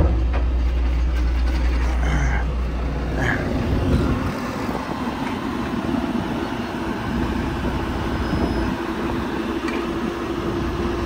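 Excavator diesel engine running steadily at a work site. A deep low rumble drops away about three and a half seconds in, and a steady hum carries on after it.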